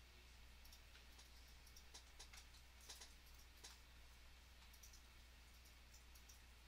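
Near silence with faint, irregular clicks from a computer mouse and keyboard during digital drawing, over a low steady hum.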